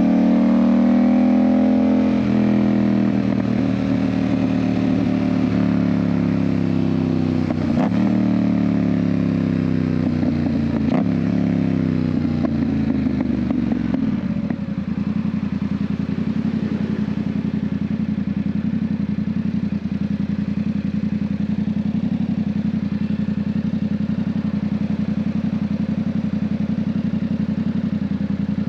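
Yamaha MT-07 parallel-twin engine with an aftermarket Ixil exhaust, slowing down: the engine note falls in several steps over about fourteen seconds, then settles to a steady idle.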